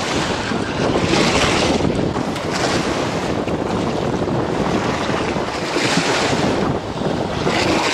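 Wind-driven waves washing up a sloping concrete reservoir bank, surging and splashing several times, with strong wind buffeting the microphone.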